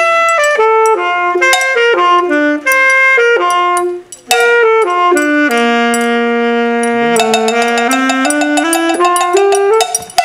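Two saxophones playing a melody together, with a triangle and small hand percussion struck along; a brief pause about four seconds in, then a long held low note and a rising run of notes.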